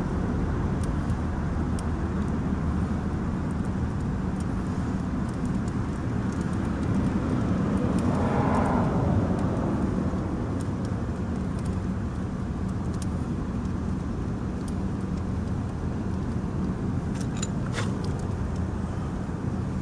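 Steady low background rumble with a constant hum, like road traffic. A vehicle swells up and fades away around the middle. A few faint clicks come near the end.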